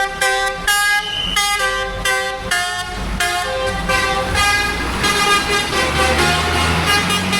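Bus basuri telolet horn, a multi-trumpet musical air horn, playing a tune of short notes that change pitch about every half second. A steady low engine hum comes in underneath near the end.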